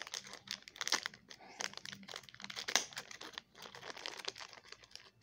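Small clear plastic packaging crinkling and rustling as it is handled and unwrapped in the hands, in quick irregular crackles that die away near the end.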